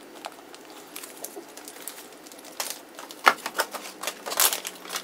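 Wrapper and packaging crinkling and rustling as items are handled: a scatter of small crackles that grows busier about halfway through.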